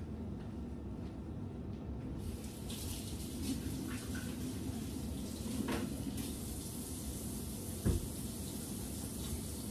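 Kitchen tap turned on about two seconds in and running into the sink as hands are washed, with a dull knock late on.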